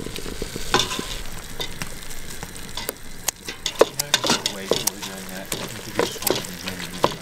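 Ground beef, corn and tortilla strips sizzling in a stainless steel pan while a plastic spoon stirs and scrapes through them, with sharp clicks of the spoon against the pan.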